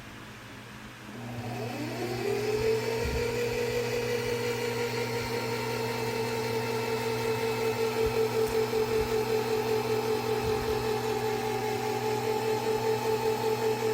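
Singer Heavy Duty 4432 sewing machine running: the motor starts about a second in, quickly rises in pitch and settles into a steady whine, with a regular pulsing beat in the second half.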